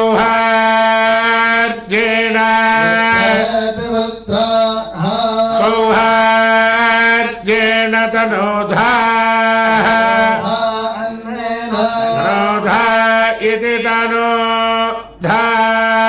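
A voice chanting Vedic mantras in Sanskrit, holding nearly one pitch in long drawn-out syllables, with brief breaks between phrases.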